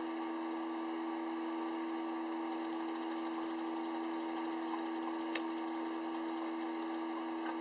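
Steady hum of running equipment, with a fast, faint high-pitched ticking through the middle few seconds and a single click about five seconds in.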